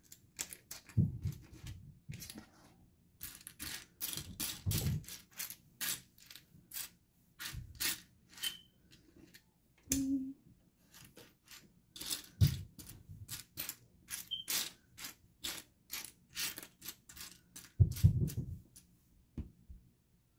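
Small plastic building bricks clicking and clattering against each other as a hand rummages and sorts through a loose pile of them on a mat, with a few dull thumps among the clicks.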